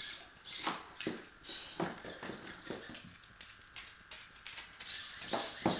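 Hexapod walking robot stepping across a tile floor: its legs tap and click irregularly on the tiles while its hobby servo motors whir faintly.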